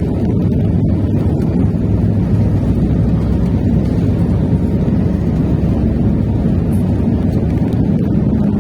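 Aircraft engine and airflow noise during takeoff: a loud, steady low rumble.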